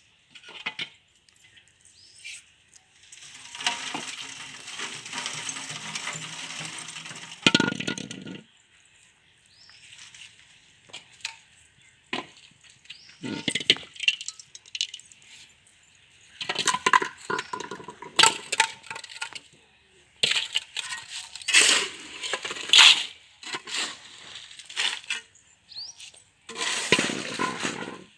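Construction work: irregular sharp clinks, knocks and cracks of hard materials being struck and handled, coming in clusters with short pauses between.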